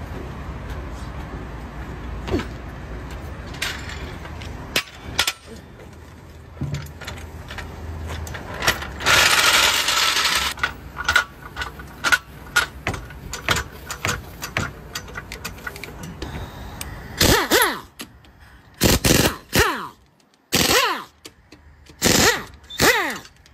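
Tire-shop work sounds: scattered metal clicks and knocks, with a loud burst of hiss about nine seconds in. In the last six seconds an air impact wrench rattles in several short bursts, its pitch rising and falling as it spins lug nuts off a wheel.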